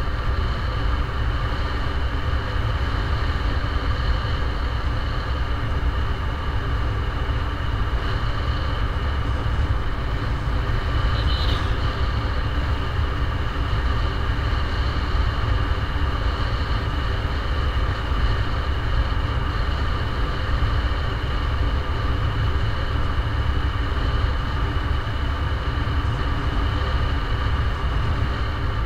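Steady running noise of a vehicle travelling along a paved road, picked up by a camera mounted on it: a constant low rumble with a steady high whine over it. A brief high chirp comes a little before halfway.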